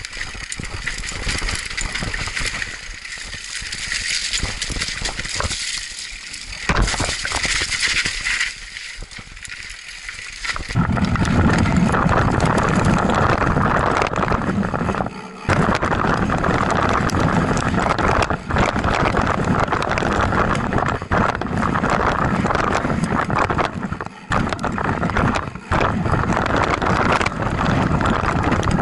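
Mountain bike ridden fast down a dirt trail, heard from a camera mounted on the bike: the chain and frame rattle and click over the bumps under tyre noise. About ten seconds in the sound turns into a much louder, steady rush that runs on with a few brief dips.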